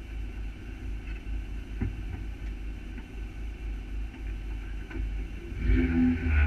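Renault Twingo R1 rally car's four-cylinder engine idling low and steady, heard from inside the cabin, with a few light clicks. Near the end it is revved up and held at higher revs, louder.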